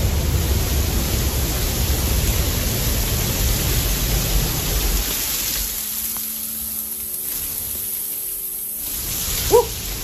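Roar of the Pailón del Diablo waterfall close by: a steady rushing noise heavy in the lows, easing somewhat about halfway through. A short cry rises above it near the end.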